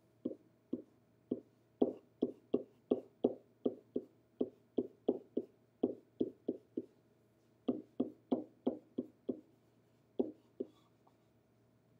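Pen tip tapping and scratching against an interactive whiteboard as a chemical structure is drawn stroke by stroke: a run of short, sharp taps, about two or three a second, thinning out to a couple of taps near the end.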